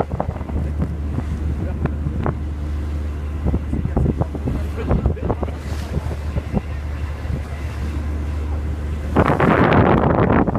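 A cruise boat's engine runs with a steady low drone, under wind buffeting the microphone, which grows stronger from about nine seconds in.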